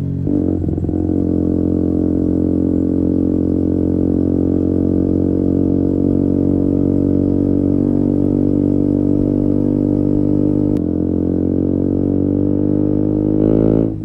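Exhaust note of a KTM Duke 125's single-cylinder four-stroke engine, breathing through an Akrapovic silencer with a GPR decat link pipe, heard while riding. It runs steadily under throttle, its pitch wavering briefly at first and then slowly climbing, with a brief click about eleven seconds in.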